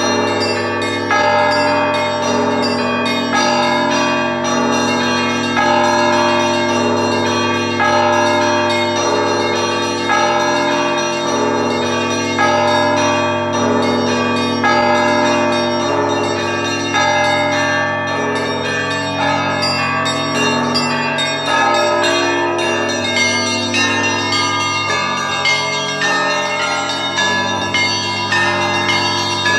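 Russian Orthodox monastery bells ringing a trezvon, the joyful peal that calls people to church before the Liturgy. Several bells of different pitch ring together, with a louder strike about every two seconds over quicker strikes of the smaller bells.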